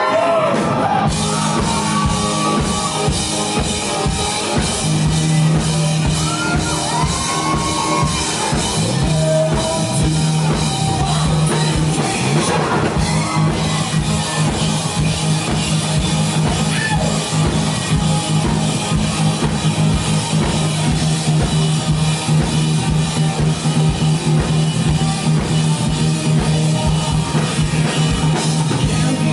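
Rock band playing live without vocals: a drum kit keeps a steady, driving beat under a sustained bass line and guitars.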